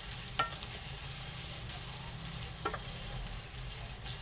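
Cubed pork sizzling in oil in a nonstick wok as it is stirred with a wooden spatula, a steady hiss. The spatula clacks sharply against the pan twice, about half a second in and about two and a half seconds in.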